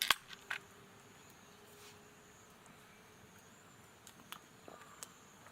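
Sharp clicks and knocks of objects being handled: two loud ones right at the start, then a few lighter taps near the end, over a faint steady high hiss.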